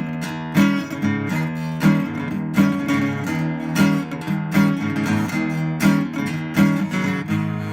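Music: acoustic guitar strummed in a steady rhythm, a chord stroke about every two-thirds of a second.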